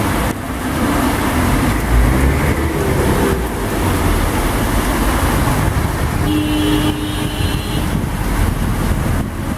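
Rain and car traffic on a flooded street, tyres swishing through standing water, with a car horn sounding steadily for about a second and a half past the middle.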